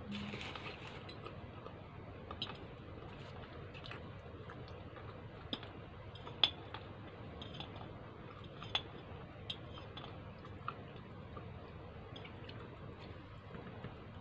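Someone eating spaghetti with a fork: scattered sharp clicks of the metal fork against the plate, the loudest about six and a half seconds in, with faint chewing between them.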